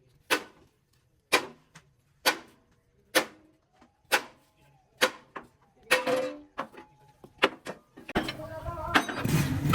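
A series of sharp knocks at a steady pace of about one a second, a few of them ringing briefly. A denser, louder noise takes over in the last second and a half.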